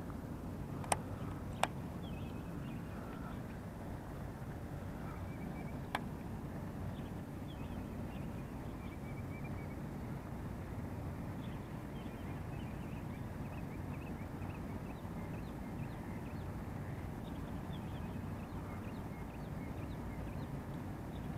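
Outdoor pond-side ambience: a steady low background rumble with faint, scattered bird chirps. Three sharp clicks stand out, two close together about a second in and one about six seconds in.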